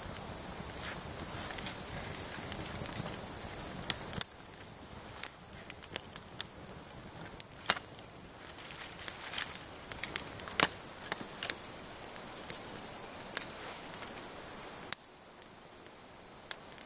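Small tinder fire of birch bark and fine dry twigs burning, with scattered sharp crackles and pops.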